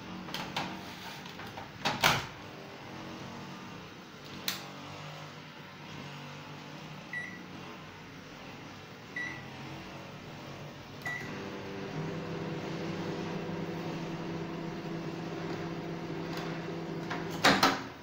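LG microwave oven, working again after a no-power repair: the door shuts with a clunk and three keypad beeps set it, then it runs with a steady hum for about six seconds. A loud clack near the end is the door opening, and the hum stops.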